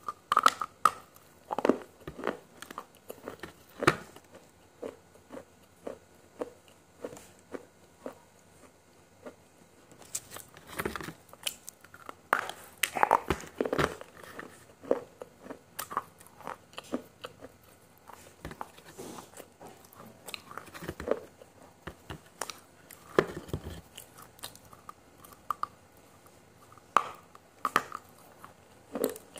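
A person chewing and crunching food right at a clip-on microphone, with irregular crisp bites and crackles.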